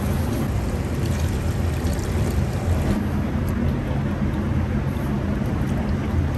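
Steady low mechanical drone with a constant hum in it, unchanging throughout.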